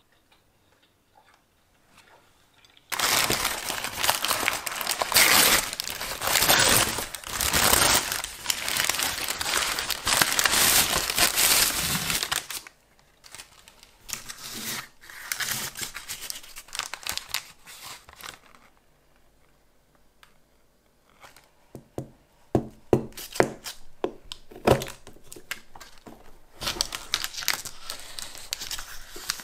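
Packaging crinkling and tearing for about ten seconds as a bakery cake is unwrapped, then a quieter stretch of light rustles. Later come a handful of sharp knocks, and near the end the paper cup wrapper crinkles as a knife cuts through the cake.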